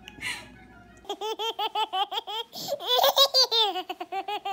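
A baby laughing in a quick run of short, high-pitched giggles, about five a second, starting about a second in, with a louder, higher stretch in the middle.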